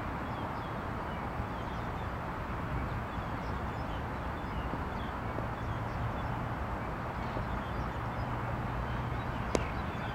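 Steady outdoor background noise with a low hum, and one sharp knock near the end.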